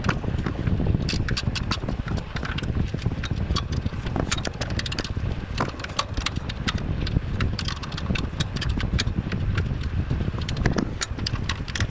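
A 14 mm ratcheting wrench clicking irregularly as it is swung back and forth on an exhaust manifold bracket bolt, over steady low handling and rubbing noise.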